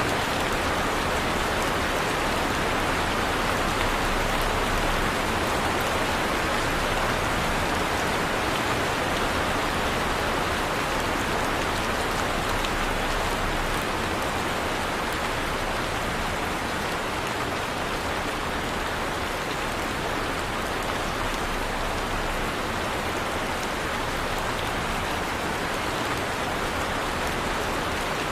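Heavy rain falling steadily, a dense even hiss of rain on a surface.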